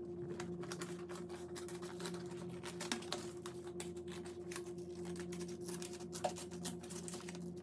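Scissors cutting through several layers of folded paper: a fast, continuous run of crisp snipping clicks, with a steady low hum underneath.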